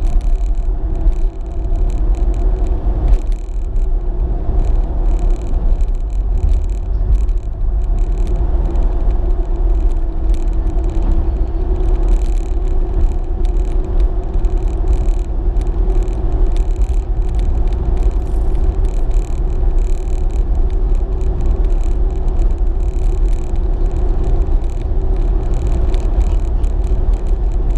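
Car driving at steady cruising speed, heard from inside the cabin: a heavy low rumble of road and engine noise with a constant hum over it, unchanging throughout.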